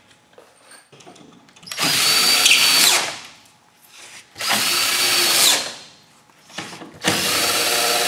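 Cordless drill-driver running bolts into a wooden shipping crate's lid through a socket, three runs of about a second each with a steady high whine. The bolts are being started loosely, not yet snugged down.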